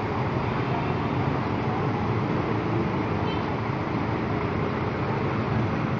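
Steady traffic din of motorbike and car engines running on a flooded road, with no single sound standing out.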